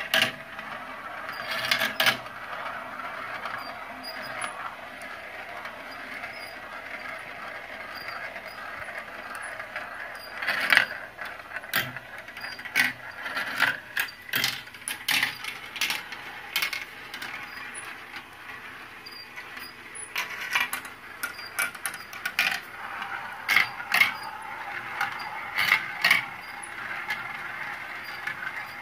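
Glass marbles rolling around the plastic funnel bowls and tracks of a toy marble run, a steady rolling whir broken by irregular sharp clacks as marbles drop through the tubes and strike the plastic pieces.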